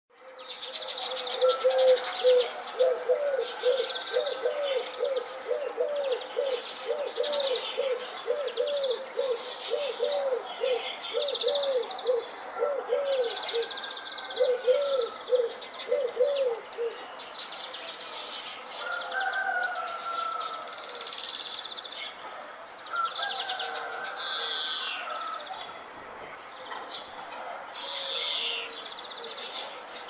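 Several wild birds singing. A rapid series of low, arched notes repeats for about the first half and then stops, while higher chirps, trills and warbled phrases from other birds carry on throughout.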